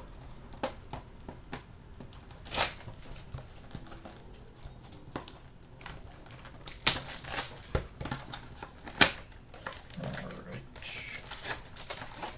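Foil wrappers of Bowman Chrome baseball card packs crinkling and tearing as packs are opened, in scattered sharp crackles.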